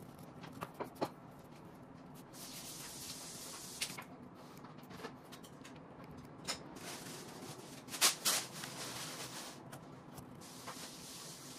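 Light scraping and tapping of a metal scraper working sawdust into a crack in a wooden tabletop, then a plastic glue bottle squeezed along the crack. Through it run soft hissing and a few sharp clicks, the loudest pair about eight seconds in.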